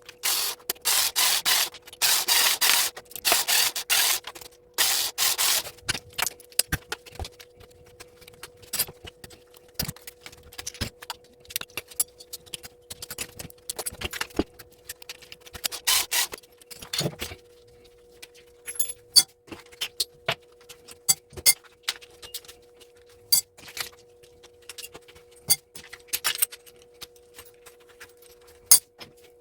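Hands stripping mains plugs: a few seconds of rubbing and scraping of plastic and metal parts, then scattered light clicks and clinks as small brass pins and fuses are handled, over a faint steady hum.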